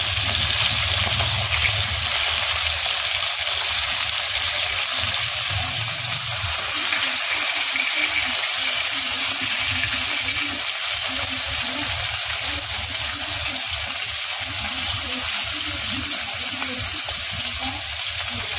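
Fish steaks sizzling steadily as they shallow-fry in hot oil in an iron kadai.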